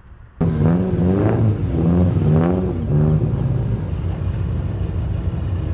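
Rally car engine being revved in short throttle blips, its pitch rising and falling twice, then running steadily. It starts suddenly about half a second in.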